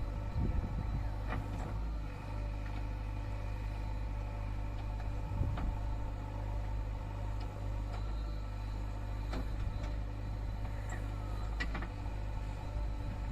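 Diesel engine of earth-moving machinery running steadily, with a few faint knocks scattered through it.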